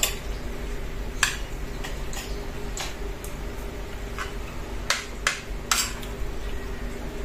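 Metal spoon and fork clinking against a ceramic plate while eating, a handful of sharp clicks at irregular intervals over a steady low hum.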